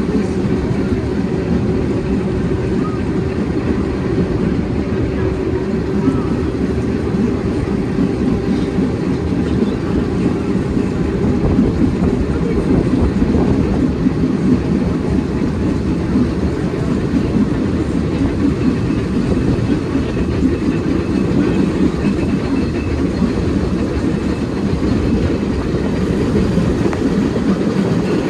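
Heritage tram running along the track: a continuous low rumble of wheels on rail, with a steady tone over the first several seconds.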